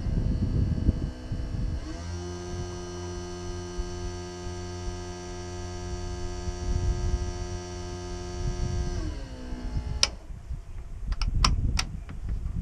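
An electric motor aboard a Cessna C188B Agtruck spins up with a rising hum, runs steadily for about seven seconds, then winds down, as part of the pre-start run-up. A few sharp cockpit switch clicks follow near the end, over a low rumble.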